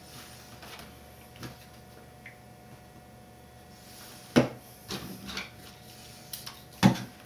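Foam model airplane being handled and turned over on a workbench: light rubs and knocks of the foam airframe, with a sharper knock about four seconds in and another near the end.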